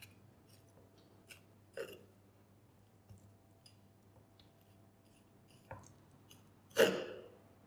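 A knife, which is not very sharp, slicing through raw beef heel muscle on a wooden cutting board. Faint wet cutting and squelching, with a few brief soft sounds, the loudest near the end.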